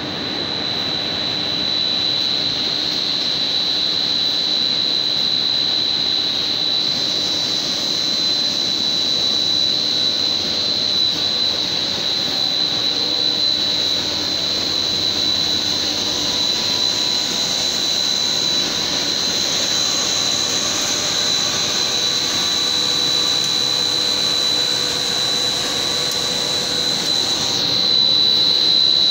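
LD (low-density polyethylene) blown-film extrusion line running: a steady machine drone with a constant high whine. A louder airy hiss joins about seven seconds in and drops away near the end.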